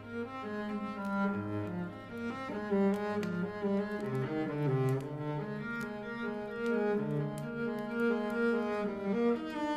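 Slow, soft cello music: low bowed notes held for a second or two each, gliding from one to the next. Faint scattered crackling clicks sit over the music.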